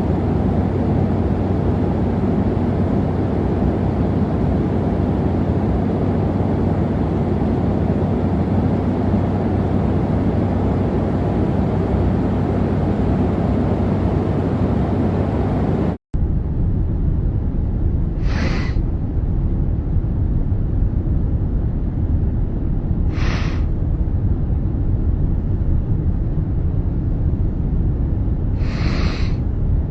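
A man sniffling three times, a few seconds apart, with a runny nose from illness, over the steady rumble of an airliner cabin. The sound drops out for an instant about halfway through, before the sniffles.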